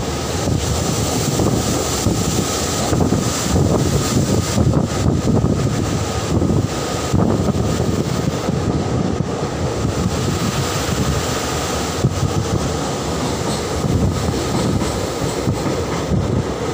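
Train running steadily across a steel truss bridge, heard from aboard with a continuous rumble of wheels on track, and wind buffeting the microphone.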